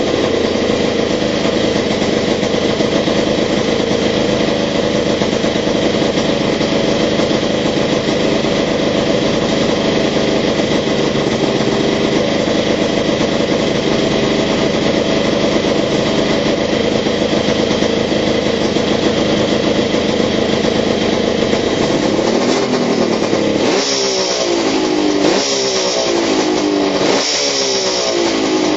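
Kawasaki 500 cc two-stroke triple with new expansion-chamber exhausts running at a steady fast idle on its first start-up with the pipes. Near the end the throttle is blipped several times, the pitch rising and falling with each rev.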